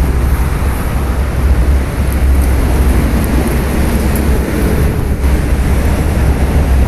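Steady low vehicle rumble with an even hiss above it, loud throughout.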